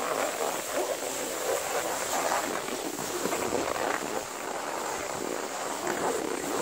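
Skis sliding and scraping over snow in a steady hiss, with wind rushing over the microphone as the skier moves.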